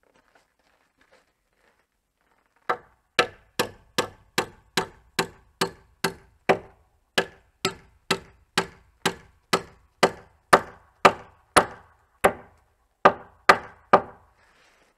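Hammer blows on a wooden rafter, about two dozen evenly paced strikes at roughly two a second, starting about three seconds in and stopping near the end.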